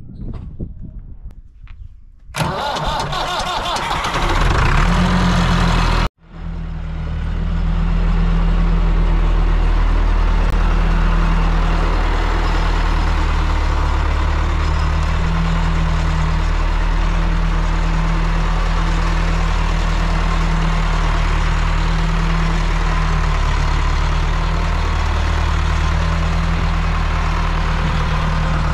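Massey Ferguson tractor's diesel engine cranking and starting about two seconds in, then running steadily as the tractor drives, with a brief cut-out about six seconds in.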